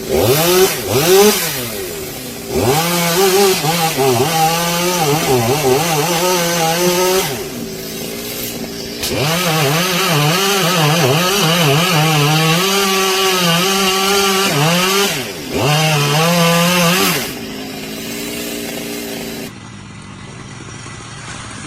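Chainsaw running and cutting wood. After a couple of short revs, the saw makes two long cuts of several seconds each, with its engine note wavering under load, and drops back to idle between them. The saw sound cuts off abruptly near the end.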